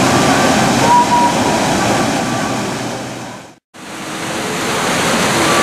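Ganges river water rushing in a steady wash of noise, fading out to silence a little past halfway and fading straight back in.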